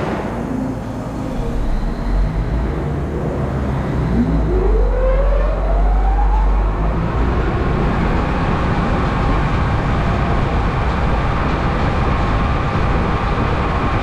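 Henschel FM1200 high intensity mixer starting up empty: its motor and mixing blades spin up, with a whine rising in pitch over a few seconds from about four seconds in, then run steadily at full speed.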